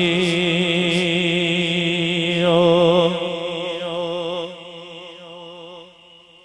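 A male naat reciter holds one long sung note with a steady, wavering vibrato, amplified through a handheld microphone. It fades away over the last couple of seconds.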